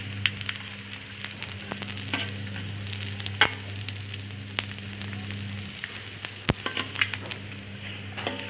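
Boiled salted fish sizzling in a little oil in a wok, with a metal spatula scraping and clicking against the pan now and then as the pieces are turned.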